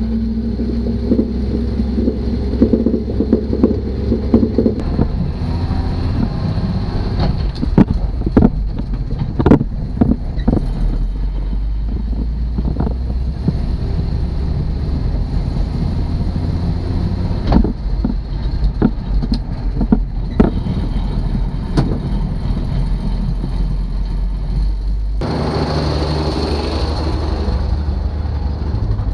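Kaiser Jeep M715 military truck on the move, its inline-six engine running steadily under load. Sharp knocks and rattles from the body and cab come through the middle of the stretch as it rolls over the rough dirt track.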